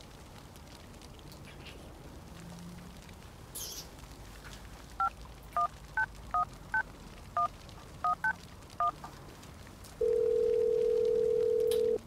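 Telephone touch-tone dialing: a quick string of about ten short two-note beeps as a number is keyed in. Then one steady ringing tone on the line for about two seconds while the call connects.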